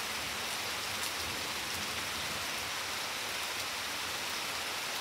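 Steady rain falling on a garden's plants and flagstone path, an even hiss with a few close drops ticking.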